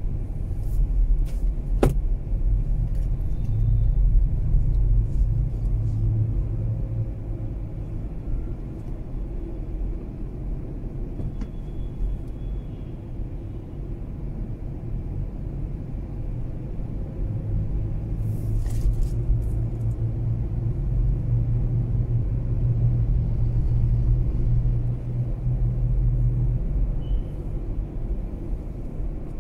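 Mazda 3 car being driven: a steady low engine and road rumble that swells for a few seconds near the start and again through much of the second half. There is a single sharp click about two seconds in.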